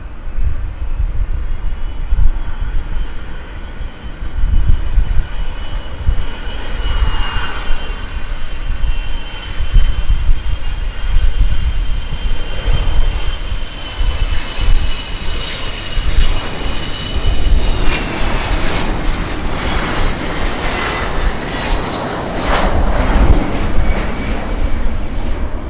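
Boeing 727-200's three Pratt & Whitney JT8D-15 turbofans on landing approach: a high engine whine grows steadily louder, then swells into loud engine noise as the jet nears and passes in the last third, the whine dipping slightly in pitch. Gusty wind rumbles on the microphone throughout.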